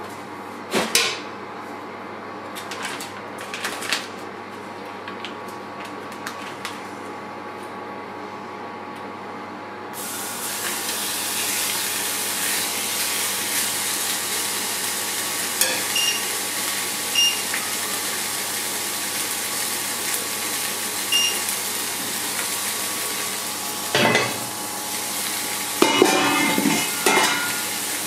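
Marinated meat sizzling in a hot cast-iron grill pan, the hiss starting suddenly about ten seconds in as the meat goes into the pan and then holding steady. A few clicks and clatters of metal tongs and kitchenware come before it and, more loudly, near the end.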